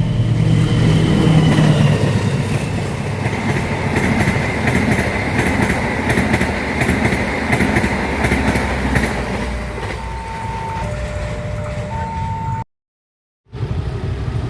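Train running past close by: a loud, steady rumble with a regular clatter of wheels over rail joints through the middle. A few short high tones sound around ten seconds in, and the sound cuts out completely for under a second near the end.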